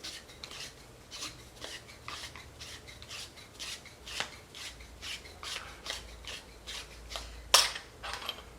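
Metal threads of a LUVO suppressor's retaining nut rasping as the nut is unscrewed by hand against its spring, in a run of short scrapes about two or three a second, with one louder scrape near the end.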